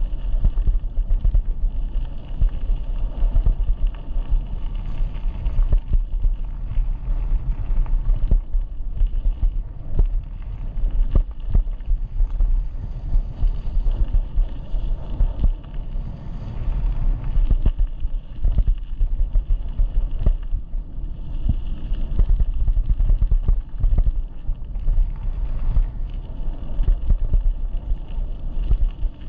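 Wind buffeting the microphone of a head-mounted GoPro Hero8 while riding an e-bike: a steady low rumble with frequent short knocks.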